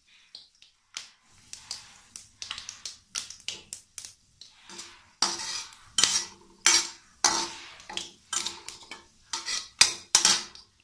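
Steel ladle clinking and scraping against a metal kadai while stirring spices in hot oil. The strokes come in a quick irregular run, light at first and louder, with a short ring, from about five seconds in.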